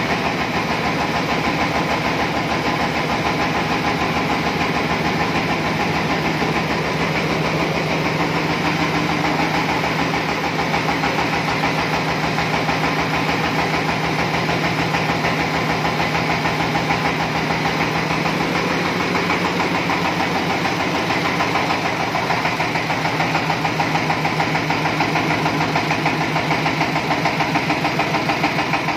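Diesel engine of a mobile rice milling machine running steadily, with a fast, even chugging beat. About twenty seconds in its low hum shifts slightly.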